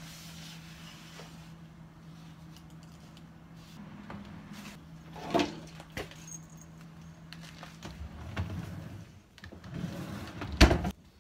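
Kitchen handling noises: a steady low hum that stops about eight seconds in, a few light knocks and rustles, and one sharp loud knock shortly before the end.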